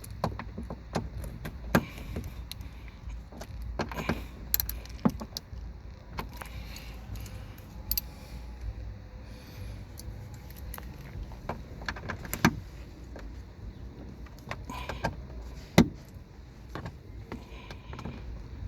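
Irregular small clicks, taps and rattles of a screwdriver prying at the plastic cover and mount of a 2013 Nissan Pathfinder's sun visor, under a steady low hum.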